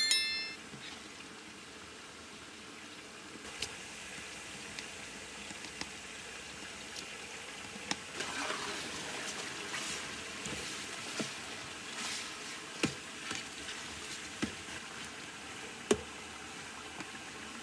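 Chicken pieces cooking in hot oil and liquid in a large aluminium pot: a steady sizzle, with scattered clinks and knocks of a metal ladle against the pot as it is stirred. A ringing clang of metal cookware right at the start.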